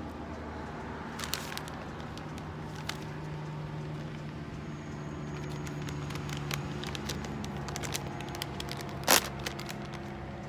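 A popcorn snack bag being handled and opened, crinkling with scattered crackles and one louder crackle about nine seconds in, over a steady low hum.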